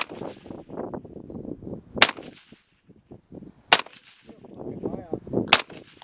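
Suppressed Glock 21 .45 ACP pistol firing four sharp shots, the first right at the start, then roughly every one and three-quarter seconds. Each shot has a short ringing tail, and a low, uneven rumble sits between the shots.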